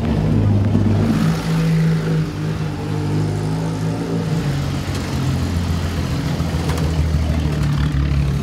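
Engines of vintage racing sports cars running and revving as they drive past one after another.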